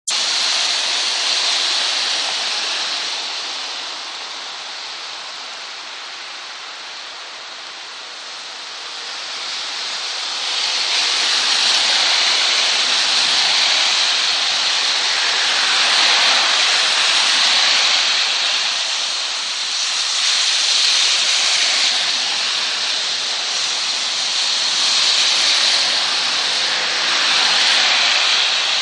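Heavy rain pouring steadily onto a street. The hiss of car tyres spraying through standing water swells and fades several times as cars pass.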